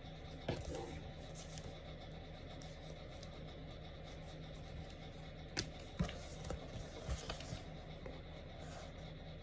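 Paper pages of a paperback book rustling as it is opened and leafed through, with a few sharp light knocks of the book and hands on the table, once about half a second in and several more between about five and a half and seven and a half seconds.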